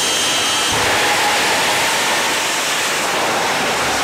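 Jet funny car's jet engine at full power with afterburner, launching down the drag strip. A loud, steady rush that grows fuller and deeper about a second in as the car leaves the line.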